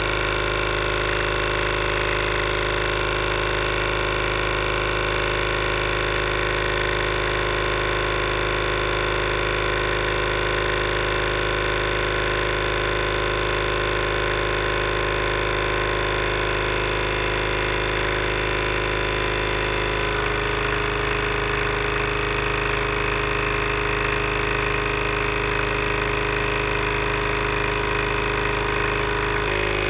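Homemade air compressor running steadily as it pumps air into a sealed plastic water bottle, building up pressure. Its tone shifts slightly about two-thirds of the way through.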